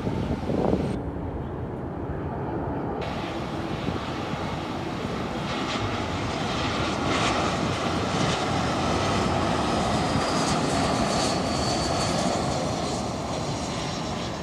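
Airbus A320-232 airliner's IAE V2527 turbofan engines at approach power as the jet flies low on final approach, gear down. A steady rumble swells to its loudest past the middle as the aircraft draws close, with a faint high fan whine near the end.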